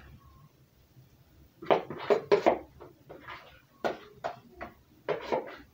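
A kitchen utensil scraping and knocking against a plastic mixing bowl and a metal cake tin as cake batter is scraped out, a run of short, irregular clatters and scrapes starting about a second and a half in.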